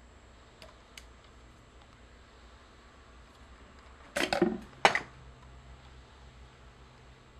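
Two faint clicks, then a brief clatter and a sharp click about four to five seconds in: small tools and speaker wire being handled while the leads are reworked.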